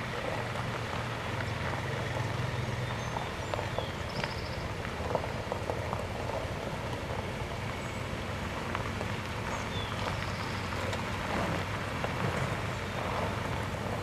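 Minivans moving slowly over a gravel drive and parking, a steady low engine hum with a light crackle of tyres on gravel.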